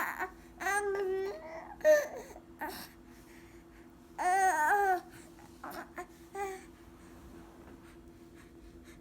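Baby babbling in short, high-pitched vocal bursts, with one warbling, wavering call about four seconds in. A faint steady hum runs underneath.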